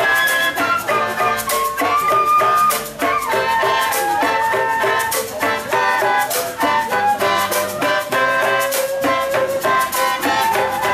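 Traditional Sabah bamboo ensemble: bamboo flutes play a held, stepping melody over a steady beat of sharp bamboo percussion strikes.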